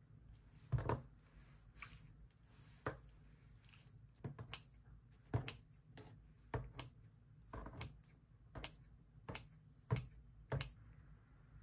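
Kitchen scissors snipping through cold noodles in a bowl of broth: a dozen or so sharp snips at an uneven pace, about one a second.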